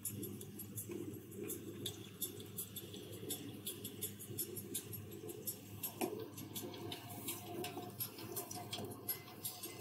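Underwater ambience: a dense, irregular crackle of sharp clicks over a faint low rumble.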